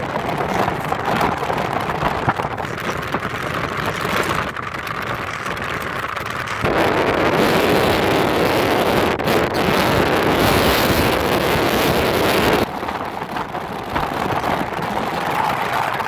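Road and wind noise inside a moving car: a steady rushing that grows louder and brighter about seven seconds in and drops back about six seconds later.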